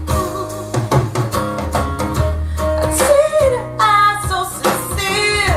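A recorded song played back over loudspeakers: a woman singing over guitar, bass and drums.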